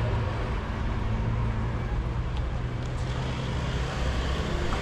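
Street traffic ambience: a steady low rumble of car engines and road noise, with a few faint ticks.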